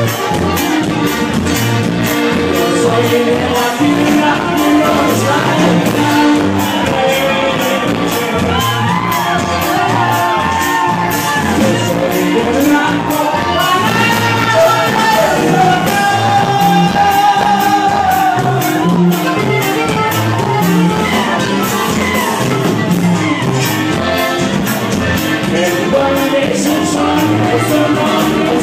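Live regional Mexican band playing a corrido, a man singing lead into a microphone over a drum kit's steady beat, with crowd shouts mixed in.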